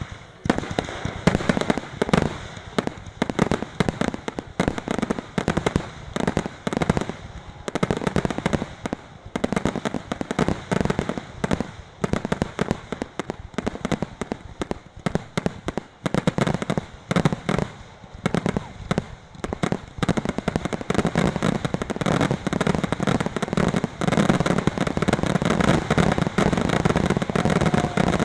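Fireworks display: rapid, overlapping bangs and crackles of aerial shells, many per second, thickening into an almost continuous barrage about two-thirds of the way in.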